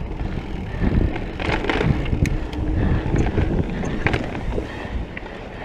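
Mountain bike ridden fast down a dirt singletrack: wind rumbling on the microphone and tyre noise, with sharp clatters from the bike over bumps, a cluster about a second and a half in and another around four seconds.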